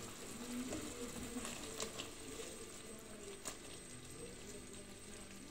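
Thickened sauce simmering quietly in a steel pot with the cooked meat rolls, with a few light clicks of a wooden spoon against the pot as it is stirred.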